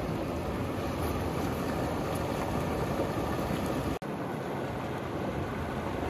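Stream water running with a steady rush. It cuts out for an instant about four seconds in, then carries on slightly quieter.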